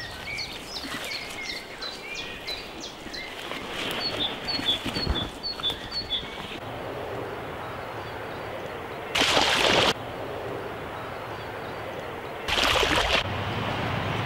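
Birds chirping in short repeated calls over a steady outdoor hiss, then two loud bursts of rushing noise, each under a second long and about three seconds apart.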